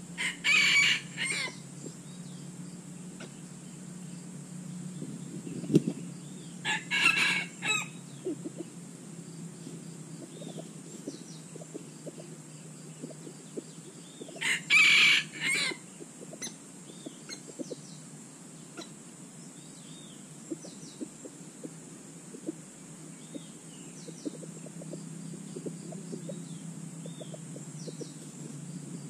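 A rooster crowing three times, each crow short and broken into two or three parts, about every seven to eight seconds. Faint short chirps of other birds come in between.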